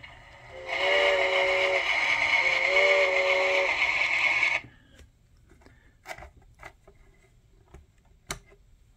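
Shay's onboard Bachmann sound card playing through the locomotive's speaker: two blasts of a several-note steam whistle over a steady hiss of steam, all cutting off suddenly about four and a half seconds in. A few light clicks follow as the switches on the tender are handled.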